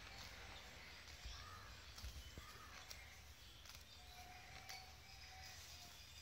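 Faint sounds of a cow grazing: soft, irregular clicks of grass being torn and chewed, with a few faint bird calls in the background.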